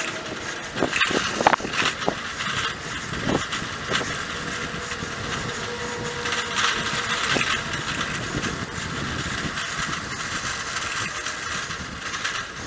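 Bicycle riding along a paved street: a steady rush of tyre and wind noise, with scattered sharp knocks and rattles from the bike.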